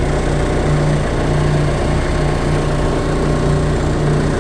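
Gold ore milling machinery running steadily: a high-frequency shaker table shaking rapidly back and forth among the plant's running motors, with a strong steady low hum.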